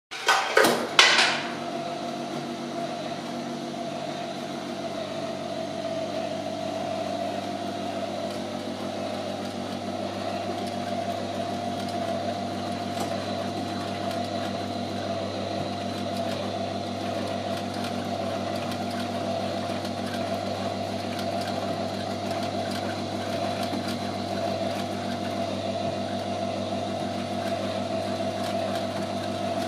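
Electric drive motor and gearing of an animated model bakery running with a steady mechanical hum of several fixed pitches. A few sharp clicks and knocks sound within the first second.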